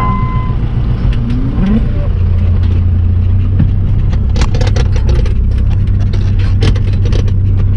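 Tractor engine running steadily, heard from inside the cab, with clicks and knocks of the cab and loader rattling over the pasture. A steady high beep cuts off about half a second in.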